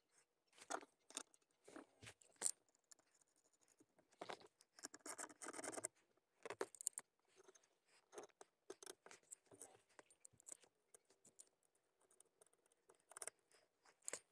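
Faint scattered clicks and scrapes of small metal hardware being handled, as bolts and washers are fitted to a RAM mount's metal base plate. A longer stretch of scraping comes about four to six seconds in.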